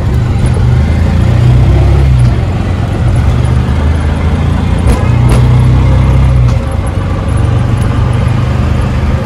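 Motor vehicle engine and road noise, a loud low rumble that swells and dips, with a few sharp knocks about five seconds in.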